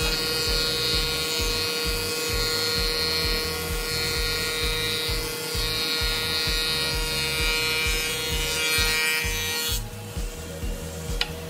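Thickness planer cutting a board: a steady, high, whining hiss of the cutterhead taking shavings off the wood over a low machine rumble. The cut stops abruptly near the end as the board clears the knives.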